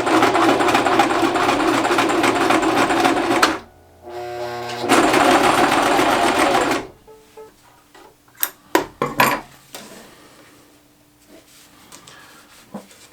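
Sewing machine stitching through denim in two runs of a few seconds each with a short pause between, then a few sharp clicks as the work is handled.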